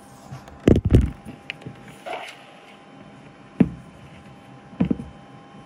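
Handling knocks on a workbench as a part is set down and the equipment is moved: a heavy double thump about a second in, then single knocks near the middle and again later.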